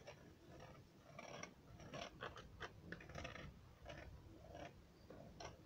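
Palette knife scraping and dabbing thick oil paint onto a fibreboard panel: a series of faint, short scratchy strokes.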